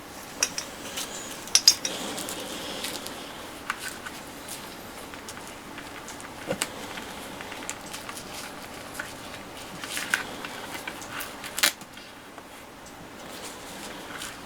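Handling noise: scattered light clicks and rustles, a small cluster about a second and a half in and a sharper click near the end, over a faint steady room hiss.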